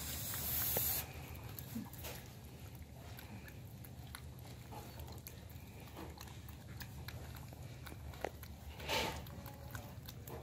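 Rustling and handling noises with small clicks over a steady low hum. A short hiss lasts about a second at the start, and a brief scratchy rustle comes about nine seconds in.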